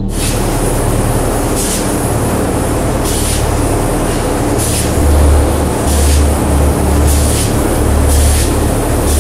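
Polyurea spray gun hissing loudly as coating is sprayed onto concrete blocks, the hiss surging repeatedly, over a low machine throb that grows stronger about halfway through.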